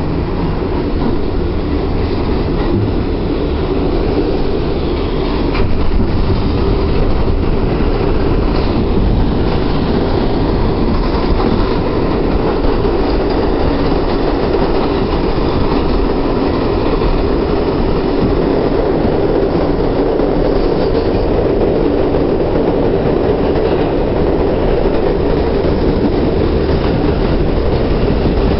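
R62A subway car running through a tunnel, heard from inside the car: a steady, loud noise of wheels on rails.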